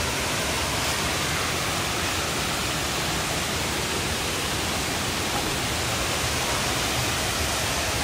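Waterfall cascading down a rock face into a pool: a steady, even rush of falling water.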